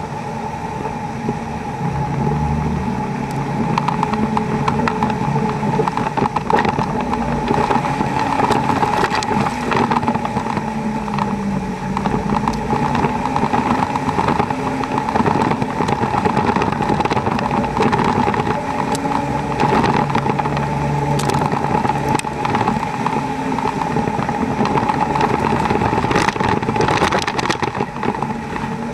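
Dodge Ram 2500's Cummins turbo-diesel engine running and rising and falling with the throttle as the truck drives through a creek, its tyres churning and splashing water, with scattered knocks and clatter from rocks and gravel. A steady high whine sits over it throughout.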